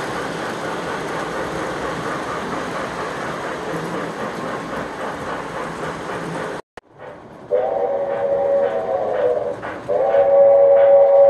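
Several Lionel O-gauge model trains running on three-rail track, a steady rumble and clatter. It cuts off sharply about two-thirds in. Then the Digital Railsounds steam whistle of the Lionel Reading T1 4-8-4 model sounds twice, the second blast long, over its faint chuffing.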